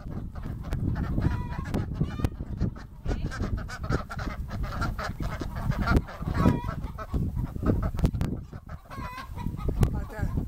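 A flock of ducks quacking, with hens clucking among them; short calls repeat and overlap throughout.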